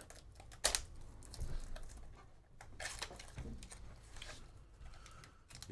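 Handling of a small cardboard trading-card pack box: light rustling and taps as its flap is opened, with a sharper click about a second in.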